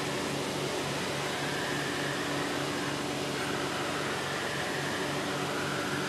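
Sawmill machinery running with a steady whirring hum, even throughout.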